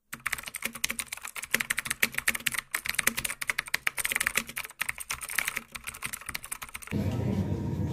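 Computer keyboard typing: a rapid, uneven run of keystroke clicks that stops about seven seconds in, followed by a low steady room hum.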